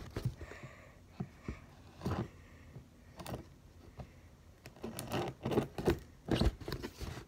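Large scissors prying and cutting at a taped cardboard shipping box: irregular scrapes and clicks, with a few louder knocks in the middle and near the end.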